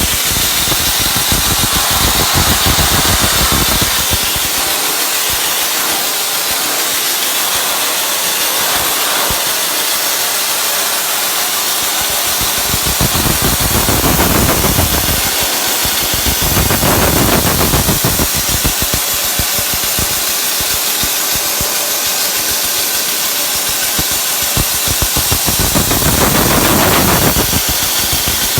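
Dry ice blaster running: a loud, steady hiss of compressed air and dry ice pellets from the blast nozzle, its lower rumble fading and returning several times.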